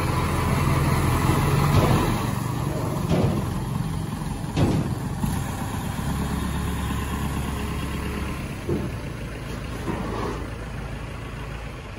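Diesel engine of a Kubota L4508DI tractor running as it is driven, louder in the first couple of seconds and then steadier, with a few short knocks.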